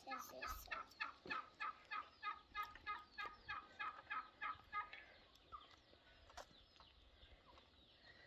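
Domestic fowl calling in a faint, even series of short pitched notes, about three or four a second, stopping about five seconds in.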